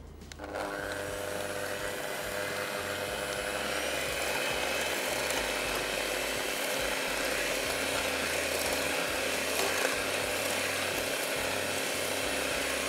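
Electric mixer starting about half a second in, then running steadily with a motor whine as it beats oil, eggs, sugar and milk until the sugar dissolves.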